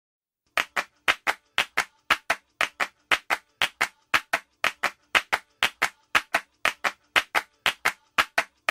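Rhythmic clapping in a steady, even beat of sharp claps grouped in pairs, about two pairs a second, starting about half a second in.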